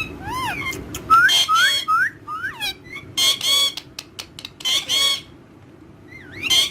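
Parrots calling: short whistled notes that swoop up and down, mixed with a few loud, harsh squawks in the middle.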